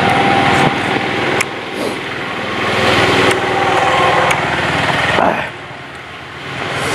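A small engine running loudly with a fast, even pulsing. It eases off about five seconds in and comes up again near the end.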